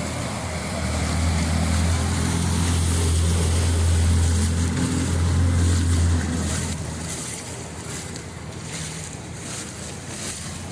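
A low engine hum grows louder about a second in, holds for several seconds, then fades, over a steady hiss of floodwater and wind on the microphone.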